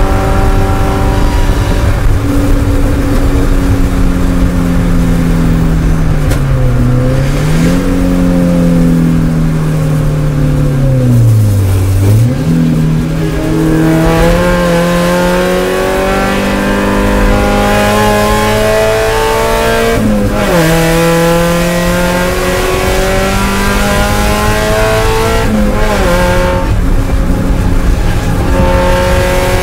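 Spec Miata's four-cylinder engine heard from inside the cockpit: revs falling under braking with two downshifts in the first twelve seconds, then climbing under hard acceleration with upshifts about twenty and twenty-six seconds in.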